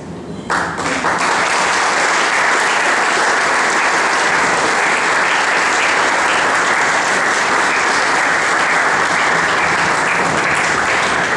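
Audience applauding. The applause breaks out about half a second in and goes on steadily.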